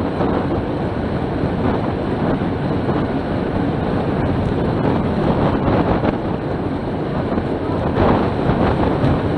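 Wind rushing over the microphone of a camera mounted on a racing bicycle riding at about 26 mph: a steady, loud buffeting roar.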